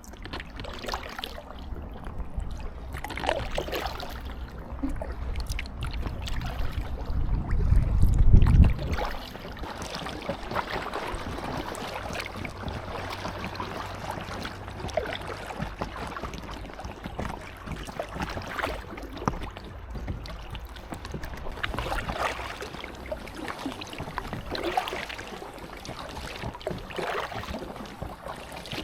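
Kayak paddle strokes dipping and splashing in lake water every couple of seconds, with water lapping around the inflatable kayak. A low rumble of wind on the microphone swells about eight seconds in.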